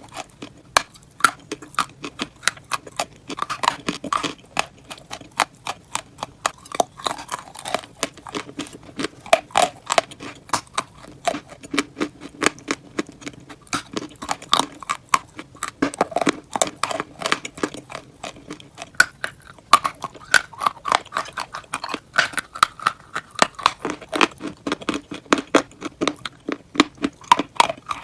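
Close-miked chewing of a crunchy grilled sandwich: a dense run of sharp, crackling crunches, several a second, with wet mouth sounds between bites.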